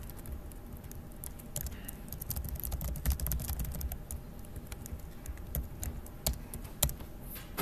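Typing on a computer keyboard: a run of quick, irregular key clicks, with a couple of sharper, louder keystrokes near the end.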